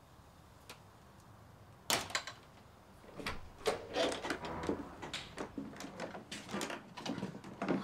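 A near-silent room, then from about two seconds in a run of irregular knocks and clicks: someone coming in through a door, footsteps and the door latch.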